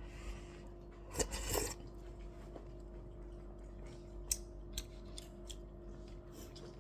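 Handling sounds at a meal table: a short scraping rustle a little over a second in, then scattered light clicks, over a steady hum.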